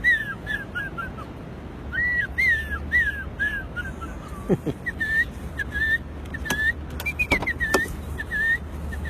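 A man imitating bird calls by mouth-whistling: a long run of short chirping notes, each rising then falling, in quick phrases with a brief pause, and a few sharp clicks in the second half.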